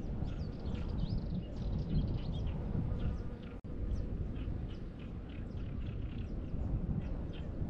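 Many small birds chirping, with a steady low rumble of wind on the microphone. The sound drops out briefly about three and a half seconds in.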